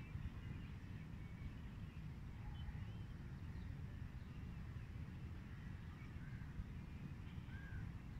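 Outdoor ambience: a steady low rumble with faint, scattered bird chirps and short calls over it.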